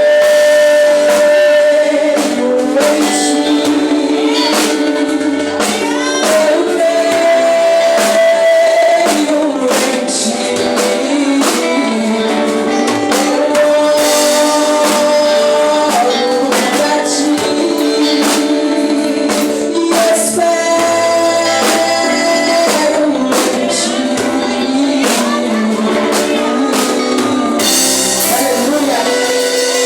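Live Christian worship music: a band with drums and guitar playing while voices sing held notes over a steady beat.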